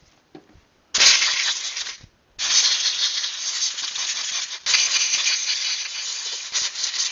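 Compressed air blow gun hissing through the passages of a Kohler CV15 carburetor to clear out dirt. There is a one-second blast about a second in, then a long blast that breaks briefly in the middle.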